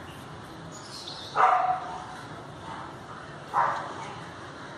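A dog barks twice: two short, sharp barks, the first about a second and a half in and the second about two seconds later.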